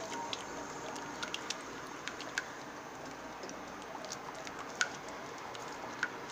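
Gelatin mixture being stirred in a pot on the stove, with light, irregular clicks and ticks of the stirring utensil against the pot over a faint steady hiss.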